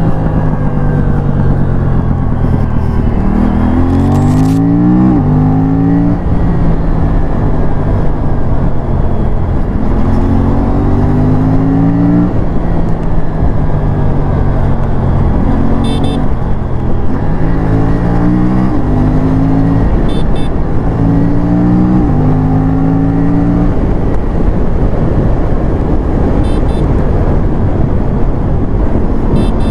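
Aprilia parallel-twin sport bike engine accelerating hard through the gears: its pitch climbs and drops back sharply at each upshift, several times over, over steady wind noise.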